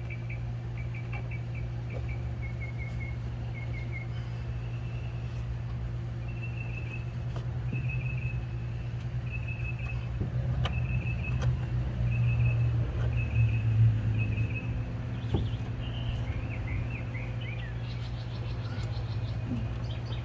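A bird chirping in short repeated phrases about once a second, with a few quicker rising chirps near the end, over a steady low hum that swells for a few seconds midway, like a vehicle passing.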